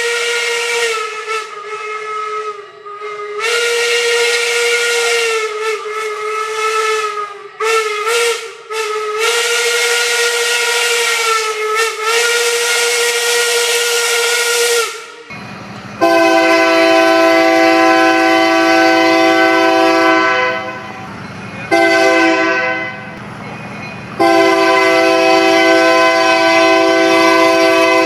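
Baldwin single-note hooter steam whistle on a steam locomotive, blown in several blasts with a few short toots, with steam hiss. After a cut about 15 s in, a locomotive's Nathan K3LA chime air horn sounds a long blast, a short one and another long one over a low engine rumble.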